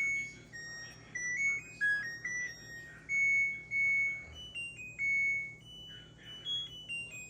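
LG dishwasher's electronic end-of-cycle melody: a tune of clear beeping notes, some short and some held, signalling that the Heavy wash cycle has finished.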